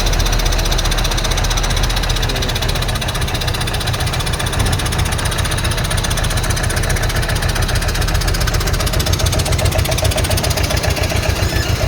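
A large engine running steadily close by, with a fast, even clatter.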